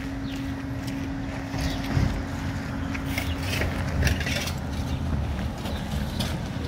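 A diesel engine running steadily with a low hum that stops about five seconds in, under footsteps scuffing and crunching on broken paving and loose stones.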